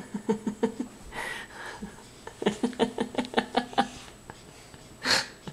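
Stifled, breathy giggling in short rapid bursts: one run at the start and a longer run in the middle, with audible breaths between.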